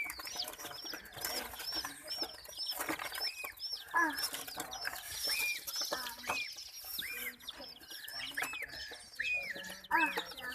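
Baby chicks chirping: a dense stream of rapid, high, overlapping peeps, with louder, lower arching calls about once a second later on.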